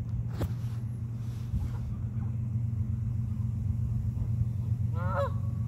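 A steady low rumble throughout, with one short goose honk about five seconds in.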